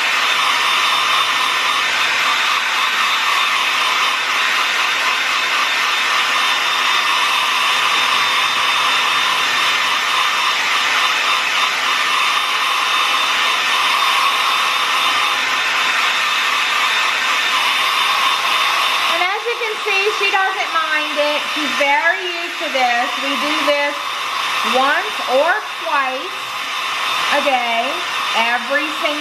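Conair 1875 handheld hair dryer blowing steadily on its cool-shot setting. About two-thirds of the way through the dryer drops a little, and a high, wavering voice rises and falls over it for the rest of the time.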